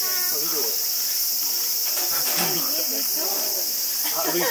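Steady, high-pitched drone of a summer cicada chorus, with indistinct voices of people talking underneath.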